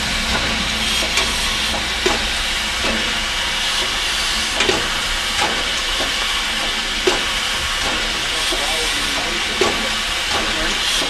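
Steam tank locomotive standing with a steady hiss of escaping steam. Occasional sharp clicks come through roughly every second or two.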